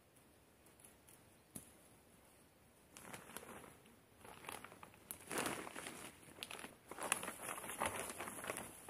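Plastic sheeting and a plastic bag rustling and crinkling as they are carried and handled, in irregular bursts starting about three seconds in and loudest near the end.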